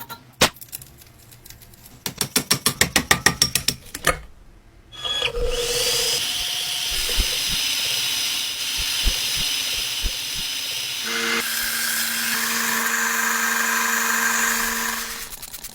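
Quick repeated clicking, then a power tool spins up with a rising whine about five seconds in and runs steadily, its pitch changing about eleven seconds in before it stops near the end.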